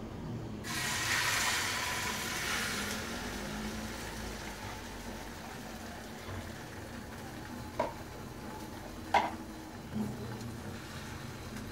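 Beaten egg poured into hot oil in a Teflon-coated mess tin over a gas canister stove, sizzling loudly about a second in, then fading over the next few seconds. A few short sharp knocks come near the end.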